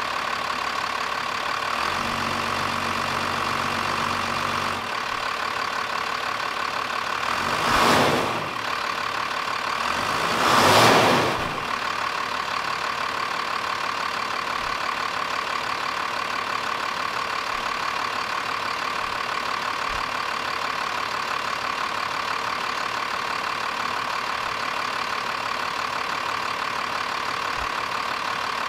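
A 1992 Dodge Ram 250's 5.9-litre inline-six turbo diesel idling steadily, blipped twice briefly, at about eight and about eleven seconds in, the second blip a little longer and louder.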